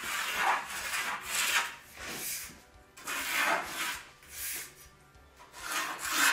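A steel straightedge scraping and rubbing as it is slid and shifted across a laminated wooden tabletop, in a series of uneven strokes about one a second.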